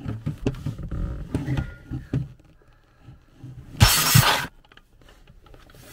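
Clunking and knocking of a right-angle grinder being set against a seized steel bearing. About four seconds in comes a short, harsh burst of grinding, under a second long, as the disc bites into the bearing to cut it off.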